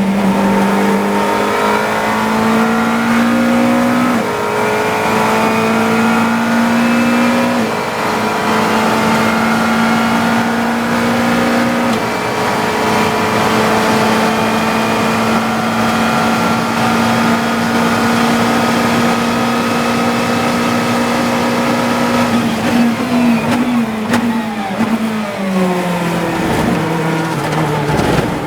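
GT3 race car engine heard onboard, accelerating hard through several upshifts, each a slow climb in pitch that drops back at the shift. It holds nearly flat out through the middle, then comes off the throttle near the end and downshifts with quick blips as the car brakes.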